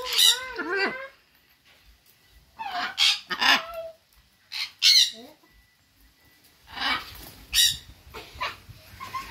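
Blue-and-gold macaw calling: a string of short calls with quiet gaps between them.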